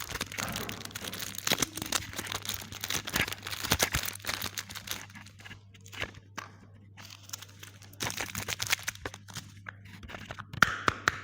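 Irregular crinkling, crunching and clicking of small objects and packaging being handled, over a steady low hum. The sound thins out about halfway through and picks up again near the end.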